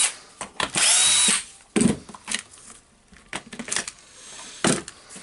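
Makita DHP458 cordless drill run briefly on the trigger: the motor whirs up and winds down within about half a second, about a second in. A few sharp knocks follow as the drill is handled.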